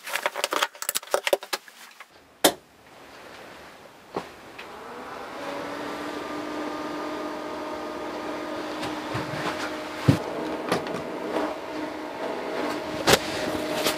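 Small PC cooling fan in a motor speed-controller box starting up after a sharp switch click, building over a few seconds to a steady whir with several steady tones in it. Handling clicks and rustle come before it, and a few sharp clicks occur while it runs.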